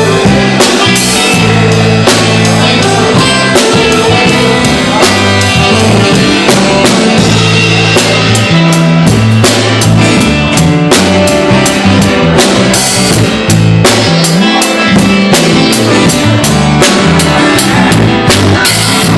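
A live rock band playing loudly: a drum kit keeping a steady beat under guitars and sustained bass notes.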